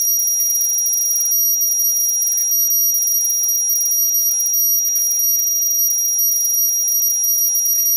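A steady, loud, high-pitched electronic whine with a faint hiss beneath it, switching on abruptly just before and cutting off abruptly just after, with no change in level throughout.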